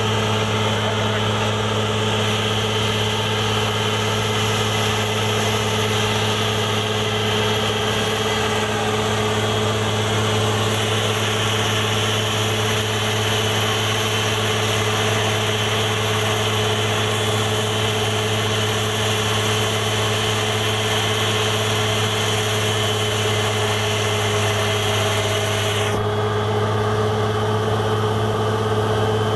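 Truck-mounted borewell drilling rig running steadily while drilling, its engine and compressor giving a constant drone with a steady hum. About four seconds before the end the higher-pitched part of the noise drops away.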